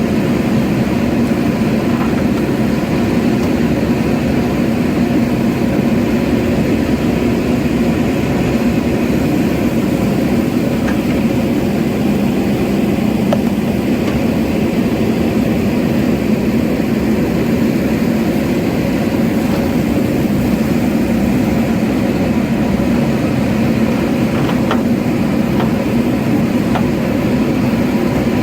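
JCB backhoe loader's diesel engine running steadily at an even speed, a constant low hum, with a few faint ticks.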